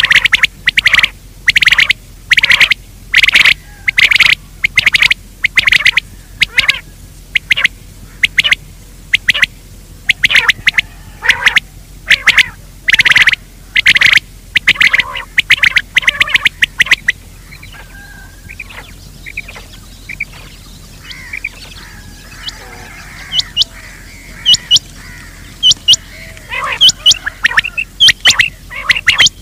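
Recorded gamebird calls played as a hunting lure: loud, harsh calls repeated about twice a second, dropping to fainter calls about halfway through, then quicker short high notes near the end.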